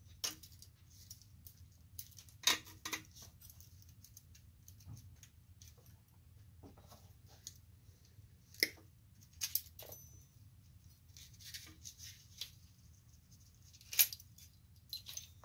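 Brass lamp socket shells and parts being handled and worked with pliers: scattered sharp metallic clicks and clinks with light scraping between them. The sharpest clicks come about two and a half seconds in and near the end.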